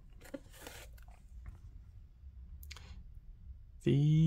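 Paper rustling, a few brief crinkles, as a printed sheet of temporary tattoos is picked up and handled. Near the end a man's voice sets in, louder, holding one note for about a second.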